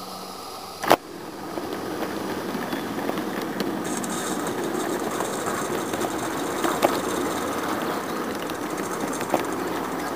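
Roundhouse Elsa live-steam garden railway locomotive running, steady and busy, with a hiss of steam joining about four seconds in. A sharp click sounds about a second in.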